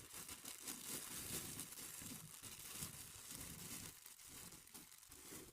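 Packaging being handled: continuous crinkling and rustling.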